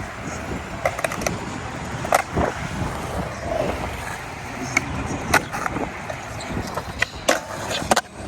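Skateboard wheels rolling on concrete, broken by sharp clacks of the board popping and landing, about ten through the stretch, the loudest about two, five and seven seconds in.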